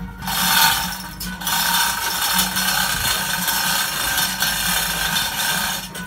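Hand chain hoist (chain falls) being hauled, its chain running and rattling through the hoist, a steady scraping rattle.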